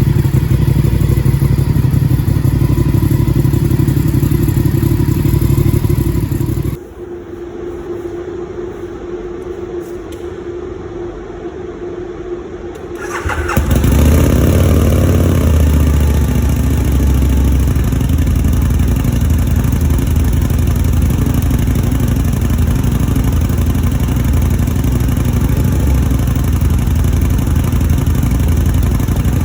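1000 cc V-twin sport motorcycle idling through its exhaust during warm-up. About seven seconds in the engine sound drops away abruptly, and about six seconds later an engine starts, rises briefly and settles back into a steady idle.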